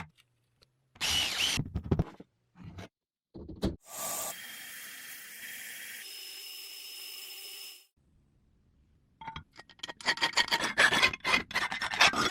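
Hand-tool work on an old halberd axe in short cut-together clips: rubbing and filing strokes, a steady hiss lasting a few seconds in the middle, then a quick run of scraping strokes near the end.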